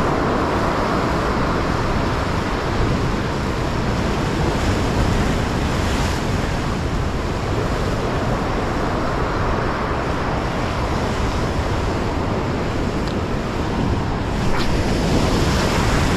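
Sea surf breaking and washing over shoreline rocks, a steady, dense rush that swells a little louder near the end.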